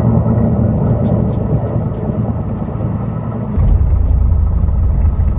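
Sleeper bus heard from inside the cabin: a steady low engine and road rumble, which turns deeper and louder about three and a half seconds in.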